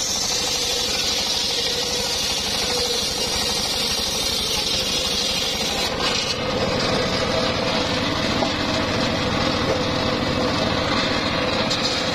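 Homemade circular sawmill running steadily, its large blade spinning and sawing through a mahogany log, with a constant machine hum under the noise of the cut.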